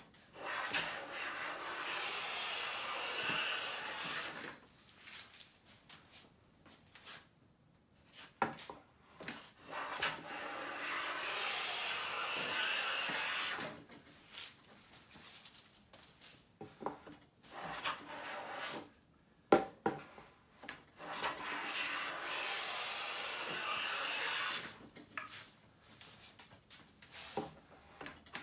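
A Siegley StS #7 jointer-size hand plane taking long shavings along a pine board's edge: three long, steady strokes of about four seconds each. Between the strokes come short sharp knocks and clicks, the loudest shortly before the third stroke.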